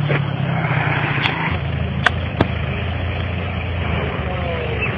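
A motor vehicle engine running steadily with a low hum that drops in pitch about a second and a half in, with three short sharp clicks over it.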